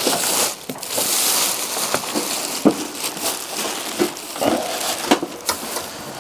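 Packaging being handled and pulled open during unpacking, rustling, with several light knocks.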